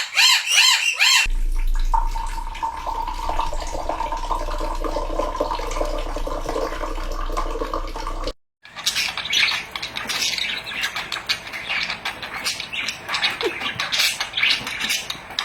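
Bird calls in three short spliced segments. The first is a rapid run of repeated rising-and-falling squawks, the second a steady hum with held tones, and the third scattered clicks and noisy calls after a sudden cut about eight seconds in.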